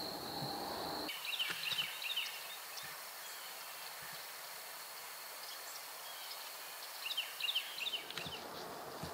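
A bird's quick chirping phrase, heard twice: each about a second long and some six seconds apart. Under it runs a faint, steady, high insect whine.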